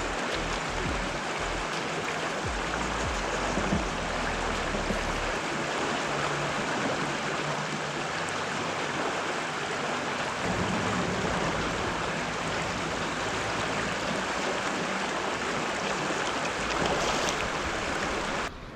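Steady rushing of a small river's current flowing over rocks, cutting off abruptly near the end.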